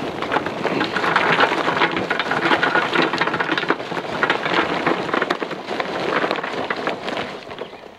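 Kingsford charcoal briquettes poured from a bag into the Char-Griller Gravity 980's charcoal hopper: a dense, continuous clatter of lumps tumbling in, thinning out near the end as the pour stops.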